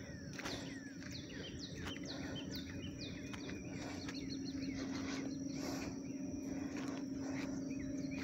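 A songbird sings a series of quick, downward-slurred whistled notes, several a second, mostly in the first three seconds. Behind it run a steady high-pitched insect drone and a constant low hum, with soft footsteps about once a second.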